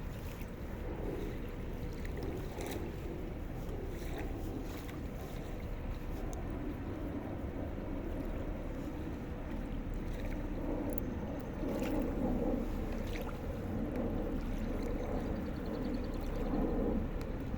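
Steady low drone of a river boat's engine, growing slightly louder about twelve seconds in, with a few faint clicks over it.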